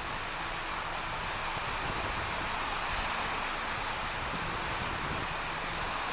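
Thunderstorm rain and wind making a steady rushing hiss with no breaks.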